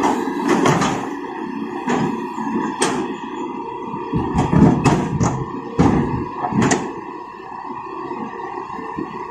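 Hitachi EX200 hydraulic excavator's diesel engine running steadily, with repeated sharp knocks and clanks as the bucket digs into rocky soil, and a heavier rumble about halfway through.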